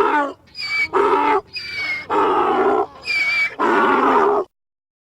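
Donkey braying: a thin, high-pitched hee on the in-breath alternating with a louder, deeper haw, four times over, stopping about four and a half seconds in.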